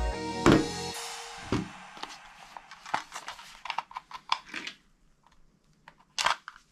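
A loud single hit as music breaks off, then a run of quick sharp clicks that grow fainter, with louder clicks starting again near the end.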